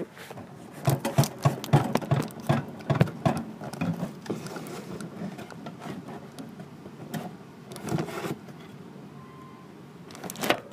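Plastic hamster-habitat tubes and cage parts being handled, giving irregular clicks, knocks and rattles. These come thick and fast for the first few seconds, then more sparsely, with a louder bunch of knocks near the end.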